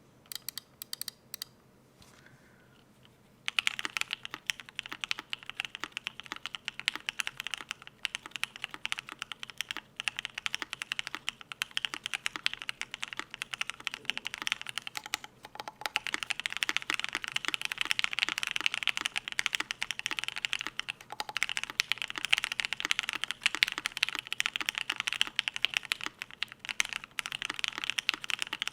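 Cannonkeys Savage65 custom mechanical keyboard, with lubed Alpaca linear switches on an FR4 plate and PBT keycaps, being typed on. A few separate key presses come first, then steady fast typing from about three and a half seconds in, with a short lull about halfway. The keystrokes have a clacky sound.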